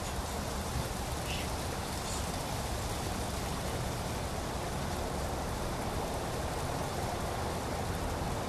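Steady light rain falling on trees and a lawn: an even hiss, with a couple of faint drop ticks in the first two seconds.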